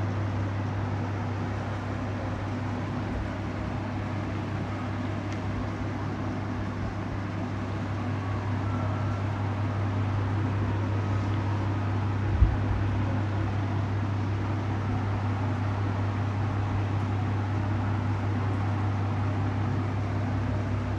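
A steady low hum under an even, fan-like rushing noise, with one brief knock about twelve seconds in.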